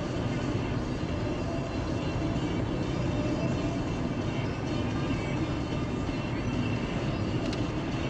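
A car driving, with steady road and engine noise.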